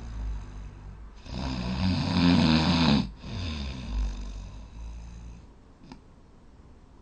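A sleeping person snoring loudly: one long, loud snore starts about a second in and cuts off sharply, followed by a softer, longer snoring breath. Then it goes quiet apart from a faint click near the end.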